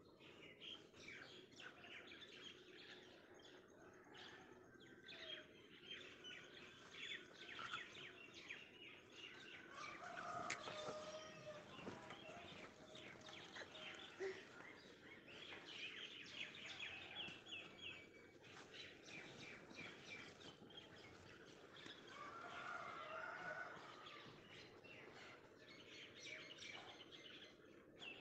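Faint birds chirping, with many short high calls throughout. Two lower, longer calls come about ten seconds in and again near twenty-three seconds.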